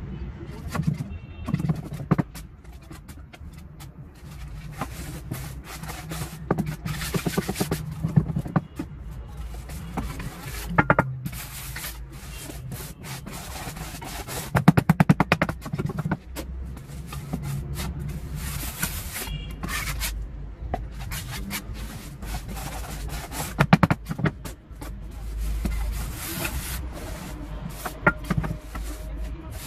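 Scraping and rubbing of gritty cement mix being worked by hand in a concrete roof-tile mould, scooped, spread and smoothed in irregular strokes, with a run of quick scrapes about halfway through.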